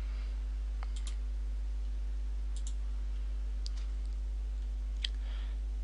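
Computer mouse clicking several times, including quick double-clicks, over a steady low electrical hum.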